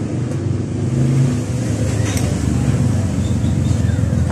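Steady low rumble of a motor vehicle engine running, with a few faint light clicks of small metal parts being handled.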